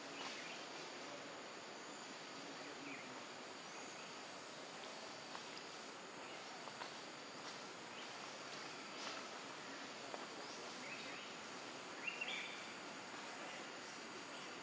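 Outdoor ambience: a steady hiss with a faint constant high insect drone, and a few short, faint high chirps, the clearest about twelve seconds in.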